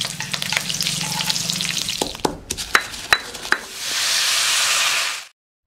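Whole spices and chillies crackling and spitting as they fry in hot oil in an iron kadai. Then a few sharp knocks of a metal spatula on the pan. About four seconds in, water poured into the hot squid masala sets off a loud hiss that lasts over a second and cuts off suddenly.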